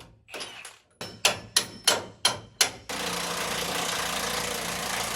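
Six quick hammer blows, about three a second, each sharp and ringing, during work on a truck's parts. They are followed by about three seconds of a steady hissing noise that cuts off near the end.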